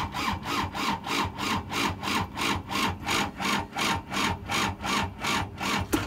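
Thomas 173HL skid steer's diesel engine cranking slowly on the starter, an even rhythmic chug of about three and a half compression strokes a second, without catching, then the starter stops. It is a hard cold start: the glow-plugged diesel turns over sluggishly in the extreme cold against the machine's heavy hydraulic load and won't fire.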